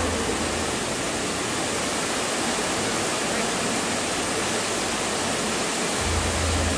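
A steady rushing noise like falling water. A low hum joins it about six seconds in.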